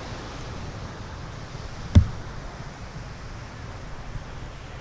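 Steady wind rumble and surf wash on a beach. A single sharp knock comes about two seconds in.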